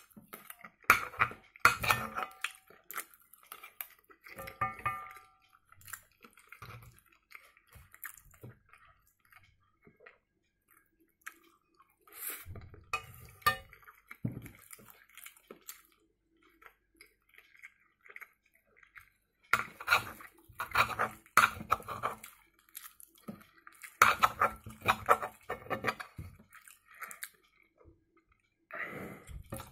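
Metal spoon and fork clinking and scraping against a frying pan in repeated bursts, busiest in the last third, with chewing in the quieter stretches between.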